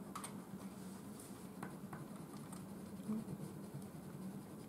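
Wax crayons scratching on paper in short, quick feather strokes, faint, over a low steady hum.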